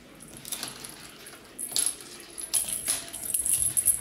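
Light, bright jingling in short bursts, a few times, from a dangled cat toy as a Siberian kitten bats at it with its paws.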